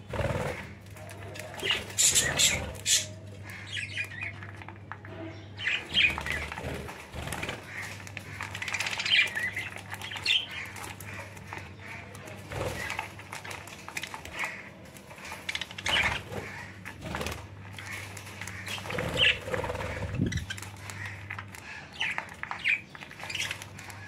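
Several budgerigars around a tub of wheat: wing flaps as birds flutter in and land, scattered short chirps and chatter, and light clicking as they peck at the grain, over a steady low hum.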